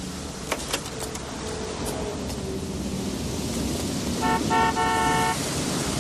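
Car horn honking about four seconds in, a short toot followed by a longer one, over a steady rumble of street traffic.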